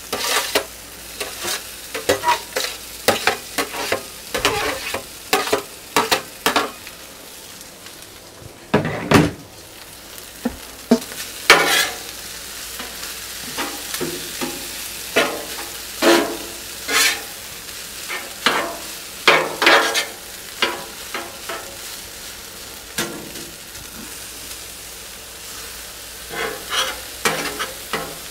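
Chicken fried rice frying on a Blackstone flat-top griddle: a steady sizzle, broken by frequent irregular taps and scrapes as the rice, chicken, peas and carrots are stirred and turned on the hot steel cooktop.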